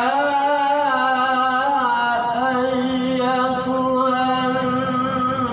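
A man chanting a Quranic verse in melodic recitation style into a handheld microphone, drawing out long held notes with slow ornamented turns in pitch.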